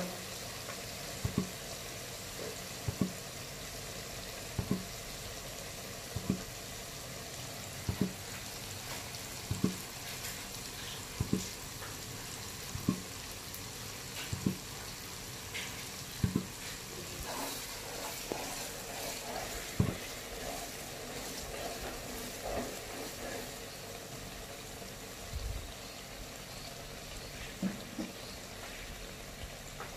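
Mackerel skin and spice paste frying in hot oil with a steady sizzle, stirred in the pan, with a regular knock about every second and a half that thins out to a few scattered knocks later on.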